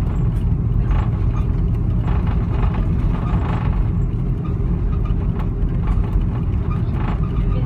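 Steady low rumble inside an Airbus A330-200's cabin as the airliner rolls off the runway onto a taxiway after landing: engine noise and landing gear rolling over the pavement.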